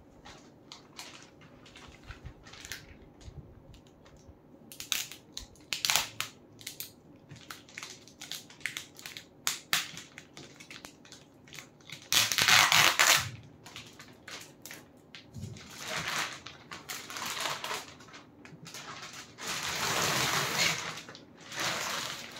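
Clear plastic wrapping crinkling and crackling as it is handled and pulled off a hard-shell suitcase. The rustling comes in short crackles, with louder stretches about halfway through and again near the end.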